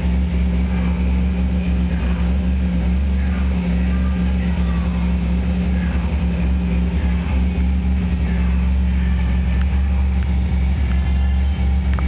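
Turbocharged car engine idling steadily, a constant low hum heard from inside the cabin.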